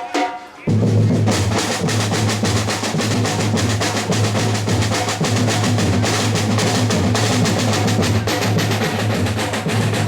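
Fast, continuous drumming with dense, rapid strokes, starting abruptly about a second in after a short dip in pitched music.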